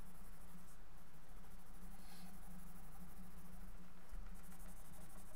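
Pencil scratching on drawing paper in shading and cross-hatching strokes, over a steady low hum.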